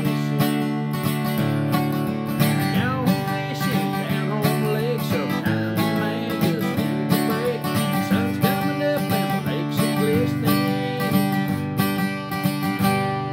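Steel-string acoustic guitar strummed in a steady rhythm, with a man singing a country tune over it.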